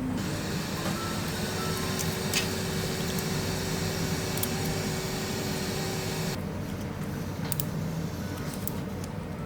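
Steady rush of air with a low motor hum that cuts off suddenly about six seconds in, over faint background music with a simple melody.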